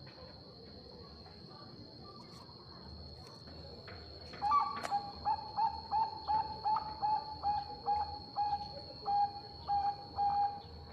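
Zebra dove (Bangkok perkutut) singing a quick, even series of short staccato coos, about three a second, starting about four seconds in after a quiet stretch.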